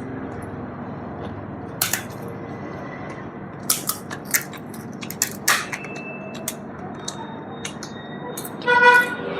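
Crispy rice crackers (bánh tráng) crunching and cracking as they are bitten and broken while eating: several sharp snaps spread through, over a steady background hiss. A brief high-pitched voice sounds near the end.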